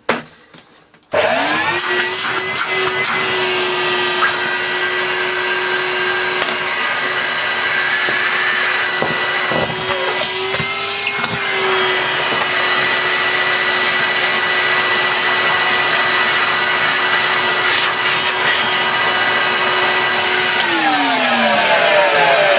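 Numatic Henry vacuum cleaner switched on about a second in, its motor running with a steady whine, with a few knocks around ten seconds in. The motor's pitch falls near the end. Its owner thinks the vacuum is full and clogging up.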